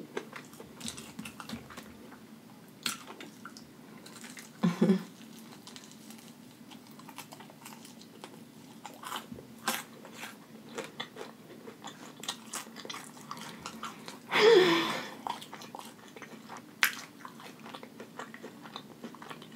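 Close-miked chewing of crispy fried chicken wings: soft crunches and wet mouth clicks. Two short vocal sounds break in, a brief one about five seconds in and a longer one about fourteen seconds in.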